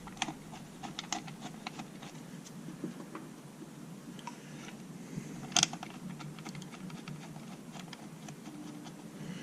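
Light, irregular clicks and taps of screws and small metal parts being handled while the outboard's lower-unit housing screws are lined up, with a sharper double click about five and a half seconds in.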